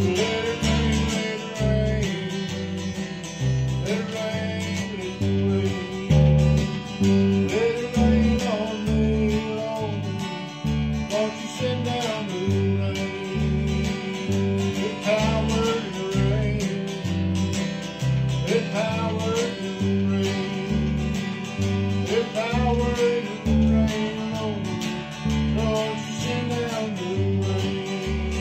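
Electric bass played through a Crate amp together with a strummed acoustic guitar, the bass stepping through a steady run of notes, with a voice singing a gliding melody over them.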